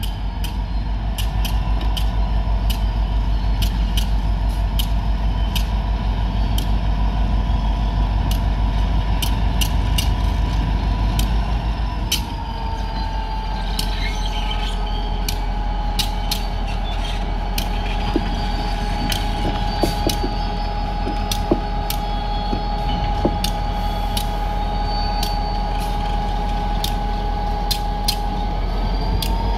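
EMD SD40 locomotive's turbocharged V16 diesel working under load as it pulls a freight train slowly over a crossing: a deep steady drone with a steady whine on top. About twelve seconds in the whine drops slightly in pitch and the sound eases a little, rising again near the end; sharp clicks recur throughout.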